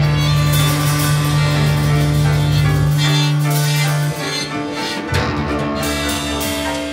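Free-improvised live music from violin, piano, drum kit and electric guitar, over a loud held low note that stops about four seconds in and is replaced by another low note a second later.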